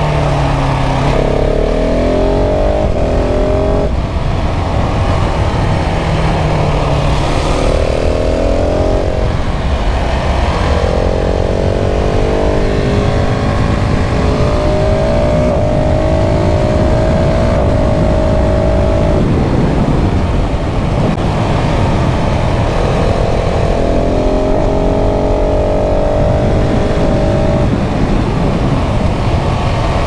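KTM 690 SMC R's single-cylinder LC4 engine accelerating on the road, its note climbing in several long pulls and dropping back between them.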